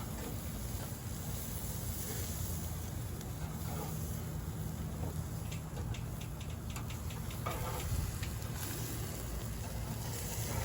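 Burger patties sizzling over a charcoal grill with the lid off, with a run of small pops and crackles in the middle.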